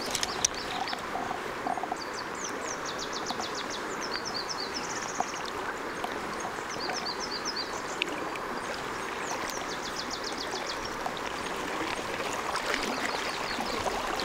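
Steady rushing of a small river's current, with a small songbird singing several short phrases of quickly repeated high notes over it.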